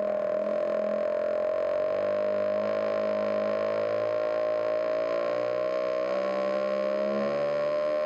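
Theremin playing one held note that slides slowly down in pitch and begins to rise again near the end.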